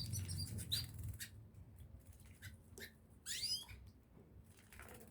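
Small pet birds chirping in short, quick notes. The loudest burst of chirps comes about three seconds in, among scattered light clicks.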